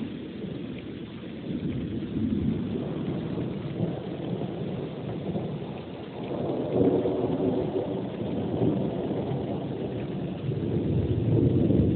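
Thunder rumbling in long rolling swells over steady rain, building about a second and a half in, again around six seconds later, and loudest near the end.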